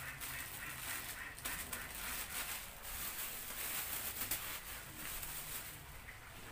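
Thin plastic bag crinkling and rustling as it is handled and shaken, a dense run of quick crackles in the middle seconds.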